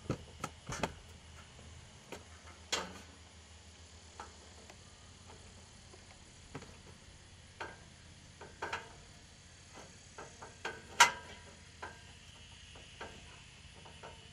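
Scattered light knocks and clinks of steel tubing as a top crossbar is handled and set onto a hay feeder's uprights, with one louder clank about three-quarters of the way through.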